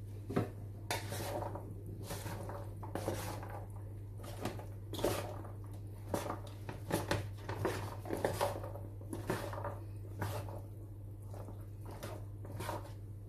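A wooden spoon stirring penne pasta salad in a large bowl: irregular scrapes, knocks and soft clicks against the bowl, over a steady low hum.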